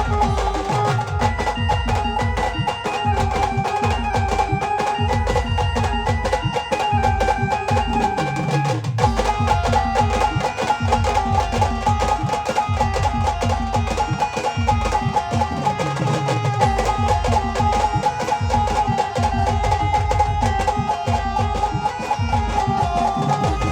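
Band music without singing: heavy, steady drum beats under a sustained melody line.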